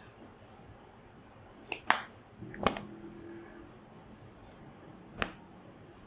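Four sharp clinks and taps of kitchen utensils against a bowl as seasonings are spooned into a food mixture, the loudest about two seconds in; the one just after rings briefly.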